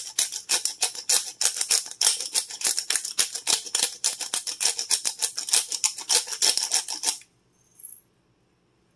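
Handheld black pepper grinder being twisted over a bowl, a fast run of gritty clicks from the grinding mechanism cracking peppercorns, stopping suddenly about seven seconds in.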